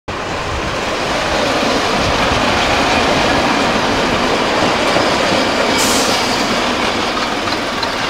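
Train running along the rails: a steady, loud rumble with a brief hiss about six seconds in.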